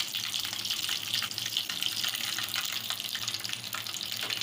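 Hot desi ghee sizzling in a frying pan with a tablespoon of sugar just added, a steady hiss full of small crackles.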